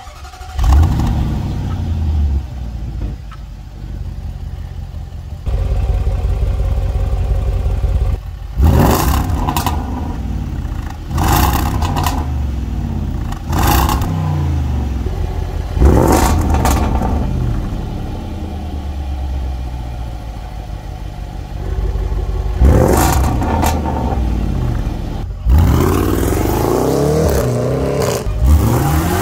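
Jaguar F-Pace SVR's supercharged 5.0-litre V8 exhaust on a cold start: it fires with a loud flare about a second in and settles to a fast idle. From about eight seconds in it is revved sharply several times, each rev climbing and dropping quickly, and near the end it accelerates with the pitch climbing.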